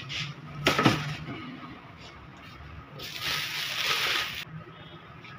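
Thin clear plastic wrapping crinkling and rustling as it is pulled off a spin dryer, with a sharp crackle about a second in and a longer rustle from about three seconds in.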